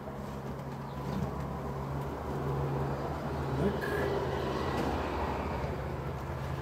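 Honeybees swarming in the air around open hive boxes, a steady dense buzz whose pitch rises briefly as single bees pass close, twice. A short rustle of a cloth hive cover being handled about four seconds in.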